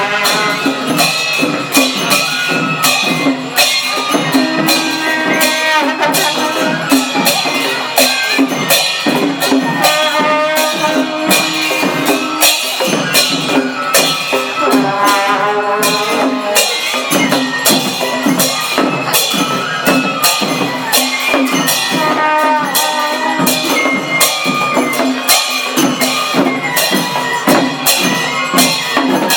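Music: a melody over a fast, steady beat of jingling, shaken percussion.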